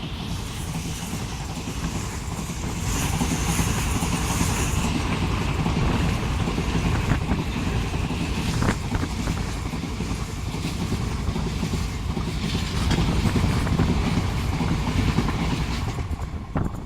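Express train passing at speed: a steady rumble from the wheels and coaches, with sharp clicks of wheels over the rail joints. The sound falls away near the end.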